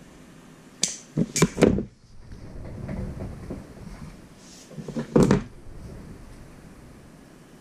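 Clatter of hand tools being handled and set down on a work table: a quick run of knocks about a second in, softer handling noise, then another cluster of knocks around five seconds in.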